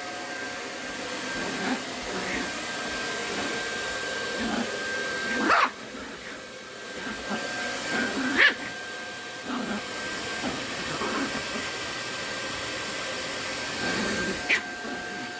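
Vacuum cleaner running with a steady motor whine, while a Maltese dog barks and yips at it. Its sharpest barks come about five and a half, eight and a half and fourteen and a half seconds in, with smaller whines and yips between.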